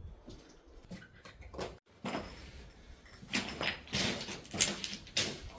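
A person breathing hard and fast after a steep climb, with a quick run of loud, noisy breaths in the second half.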